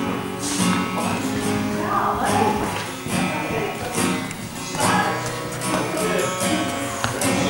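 Acoustic guitar being strummed in a steady rhythm, with a girl's voice singing along at times.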